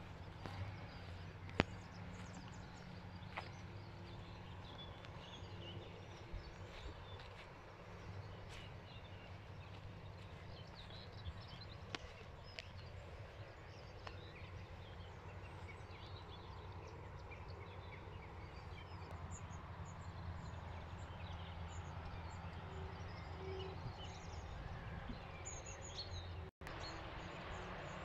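Birds chirping faintly over a steady low rumble, with a few light clicks in the first half and a brief dropout in the sound near the end.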